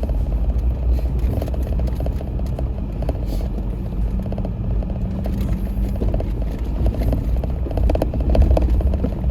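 Jeep driving slowly over rough off-road ground: the engine runs steadily at low revs under a continuous low rumble, with a dense rattling and clattering from the body over the bumps.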